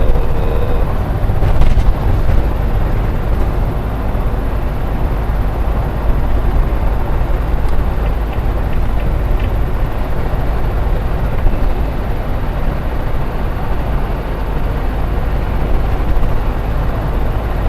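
Steady engine and road noise of a diesel vehicle heard from inside the cab while driving, a continuous low rumble.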